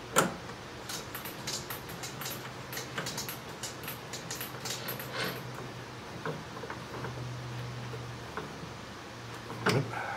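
Small metallic clicks and knocks of hand work on a metal lathe at its chuck, the sharpest just after the start and a couple more near the end, over a steady low hum.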